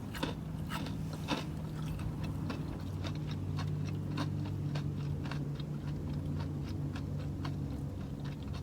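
A person chewing a mouthful of food close to the microphone, with many short wet mouth clicks and smacks several times a second.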